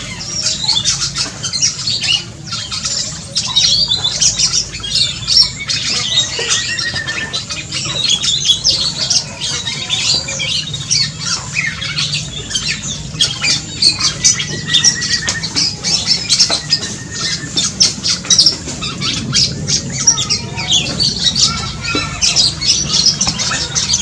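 Black-and-crimson oriole calling again and again among a busy chatter of other birds, with a few short whistled trills mixed in.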